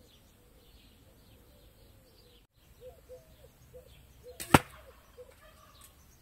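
An arrow shot from a homemade Comanche-style bow hits a dense target of carpet layers sandwiched in high-density foam with one sharp smack about four and a half seconds in. Faint bird chirps are heard around it.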